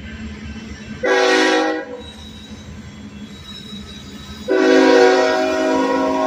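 Union Pacific locomotive air horn sounding for a grade crossing: a short blast about a second in, then a long blast starting about four and a half seconds in and still going at the end. This is the standard crossing warning from the approaching train's lead unit.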